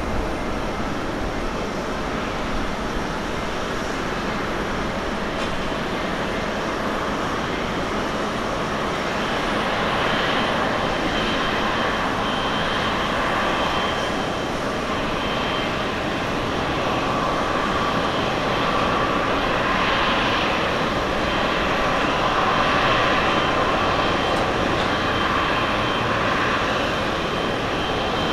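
Jet engines of a Boeing 777-300ER (GE90s) running at taxi power: a steady rushing whine that grows a little louder and higher from about a third of the way in as the airliner turns toward the listener.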